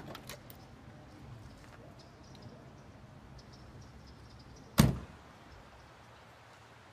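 A classic car's door shutting once, a single solid thunk about five seconds in.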